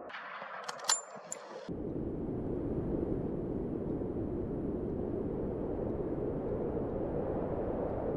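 Two sharp metallic clinks with a high ring about a second in, over a light hiss. Then, from about two seconds, a steady low rushing noise of wind buffeting the microphone.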